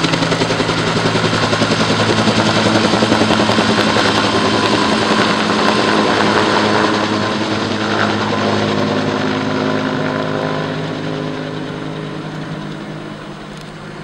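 Firefighting helicopter flying overhead with a water bucket slung beneath on a long line, its rotor and engine running steadily, growing fainter over the second half as it flies away.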